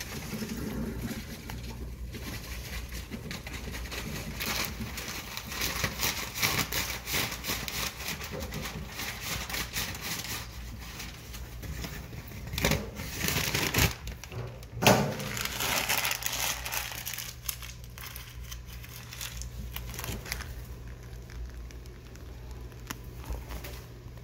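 Irregular crinkling and rustling handling noise, busiest through the middle, with a few sharp knocks in the middle.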